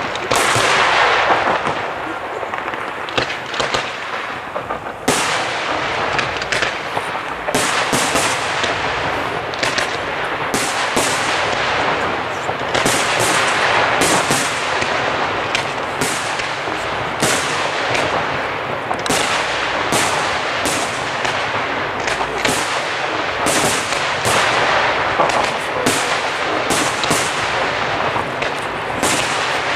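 Aerial firework shells bursting in quick succession during a pyrotechnic display, more than one sharp bang a second over a continuous noisy wash that never drops away between them.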